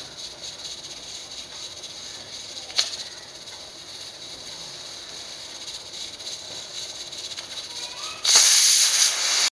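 5.5-litre stainless pressure cooker on a gas burner: a faint steady hiss with a single click about three seconds in, then near the end the whistle blows, a loud burst of hissing steam that cuts off abruptly. This is the one whistle at which the stove is to be switched off for matta rice.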